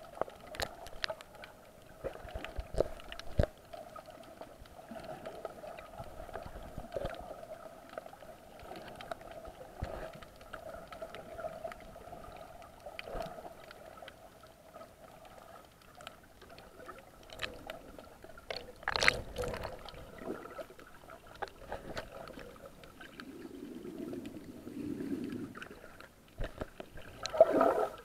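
Muffled underwater sound picked up by a camera in a waterproof housing: a faint steady hum with scattered clicks and knocks, a louder rush about two-thirds of the way in, a low gurgle after it, and a loud handling knock near the end as a hand covers the camera.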